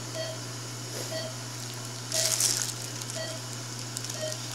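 Operating-room patient monitor beeping about once a second, the regular pulse tone of the monitoring, over a steady low hum. A brief rustle about two seconds in.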